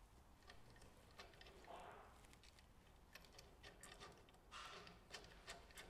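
Near silence, with faint scattered ticks and clicks of small metal hardware being handled: a washer and nut being fitted onto a bolt by hand.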